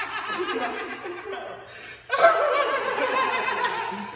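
Men laughing hard, with a fresh loud outburst of laughter about two seconds in.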